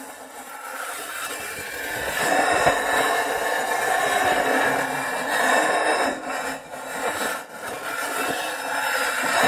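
A sheet of metal sliding and dragging across a surface, making a continuous scraping friction noise that swells and eases, with a few brief drops in the second half.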